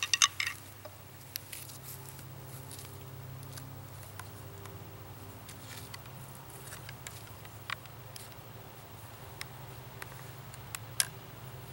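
Scattered light clicks and knocks from handling a homemade PVC-prod crossbow while it is being cocked, the sharpest click near the end, over a faint steady low hum.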